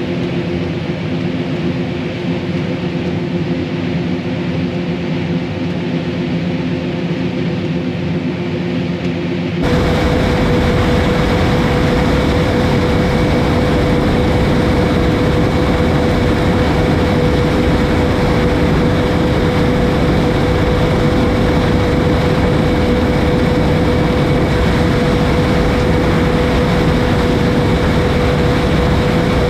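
John Deere S670 combine running steadily while harvesting corn. About ten seconds in, the sound jumps to a louder, rougher noise with a steady whine.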